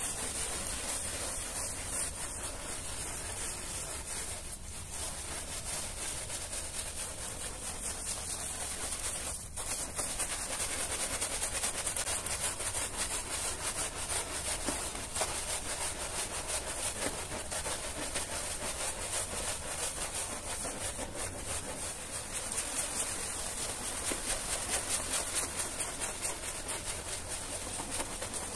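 Stiff-bristled push brush scrubbing a rug soaked in soapy foam, a continuous wet scrubbing made of quick back-and-forth strokes.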